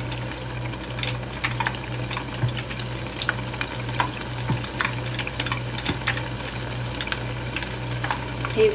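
Battered squash blossoms deep-frying in hot oil in a saucepan: a steady sizzle with scattered pops and crackles, over a steady low hum.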